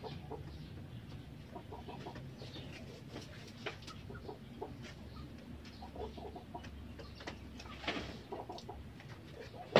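Chickens clucking, with scattered knocks and scrapes from a wooden cage frame being handled, and a sharp knock near the end.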